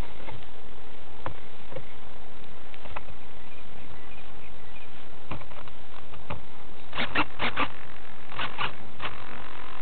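Steady wind noise and hiss on a small plane-mounted camera's microphone, with scattered light clicks and taps that come in two quick runs near the end.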